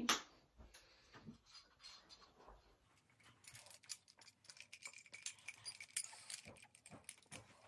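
A glass of water handled and sipped through a metal straw: faint clicks and knocks of glass and straw, with quiet sucking sounds.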